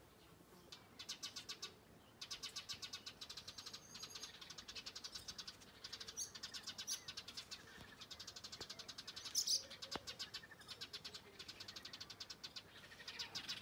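A cat purring: a faint, fast, even pulsing, with a couple of short high chirping sounds.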